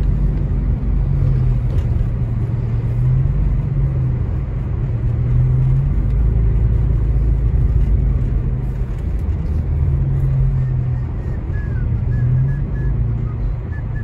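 Steady low rumble of a car's engine and tyres on a snow-covered road, heard from inside the cabin while driving.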